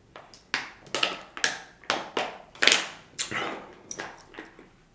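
Close-miked chewing of smoked turkey leg meat: wet, clicky mouth and lip smacks repeating about twice a second.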